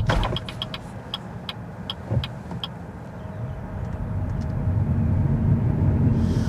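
BYD Dolphin electric car driving: road and tyre rumble drops away at the start, then builds steadily again as the car gathers speed, with light ticking in the first few seconds and a single thump about two seconds in.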